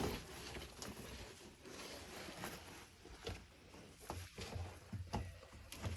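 Shoes scuffing and scraping on rock as people climb over boulders, with scattered light knocks.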